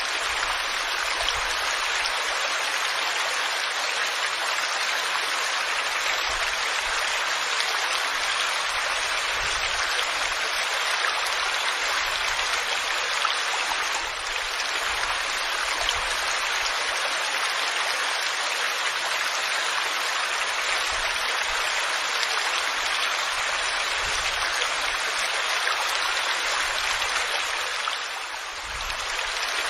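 Waterfall rushing: a steady, dense wash of falling water that dips briefly in level twice, once midway and once near the end.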